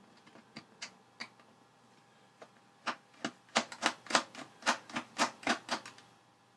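Small screwdriver clicking against the retaining screws of a D-sub cable plug on the back of a digital readout as the screws are undone. A few scattered clicks at first, then a quick run of about a dozen sharper clicks, roughly four a second, near the end.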